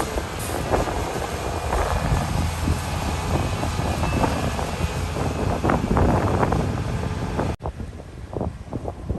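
Heavy diesel construction machinery running: a steady low engine rumble with scattered knocks and clatter, and wind on the microphone. Near the end the sound drops suddenly to a quieter rumble with separate knocks.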